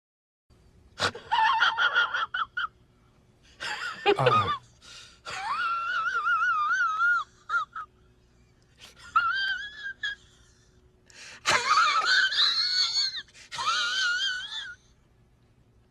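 A man's high-pitched, wheezing laugh in about six bursts, its pitch warbling up and down, with short pauses between the bursts.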